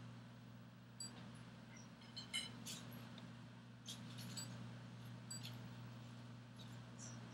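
Faint steady low hum, with scattered short high-pitched chirps and clicks, the loudest a little over two seconds in.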